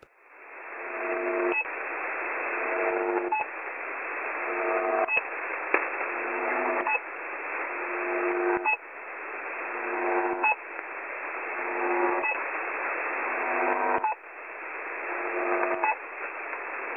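Russian military shortwave signal received over a radio: a droning buzz in static, broken about every two seconds by a short pip. It is the new hybrid between the Buzzer and a pip. In each cycle the drone swells and then cuts off sharply at the pip.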